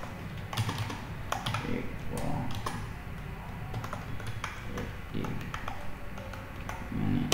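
Typing on a computer keyboard: irregular key clicks, some in quick runs and some spaced apart.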